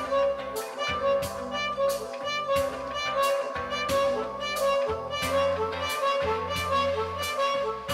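Music with a steady beat of about two hits a second, a bass line and a sustained melody on top.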